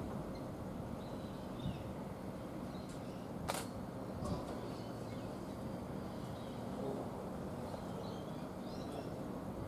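Railway platform ambience: a steady low rumble with faint bird chirps, and one sharp click about three and a half seconds in.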